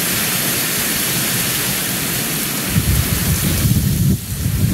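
Torrential hurricane rain pouring down as a loud, steady hiss. Nearly three seconds in, a strong gust of wind sets in and buffets the microphone with a heavy low rumble.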